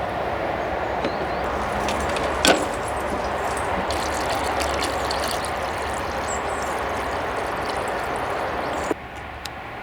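Electric kettle heating water, a steady rushing boil with one sharp click about two and a half seconds in; the noise cuts off suddenly near the end.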